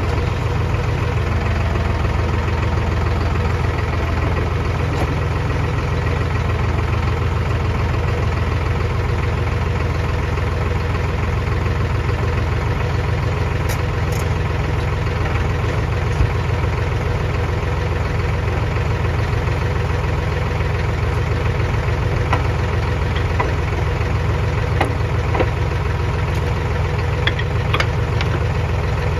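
A large engine running steadily at a low, even speed with a deep rumble, with a few faint clicks in the second half.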